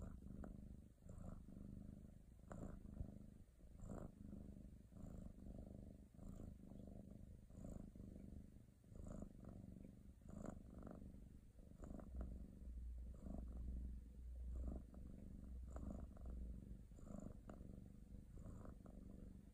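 A cat purring softly and steadily, the purr swelling and easing with each breath about once a second.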